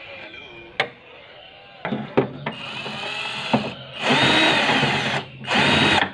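Cordless electric screwdriver backing out the back-cover screws of a CRT television. A few sharp clicks come first, then the motor whirs in short runs and two longer bursts of about a second each, its pitch rising as it spins up and dropping as it stops.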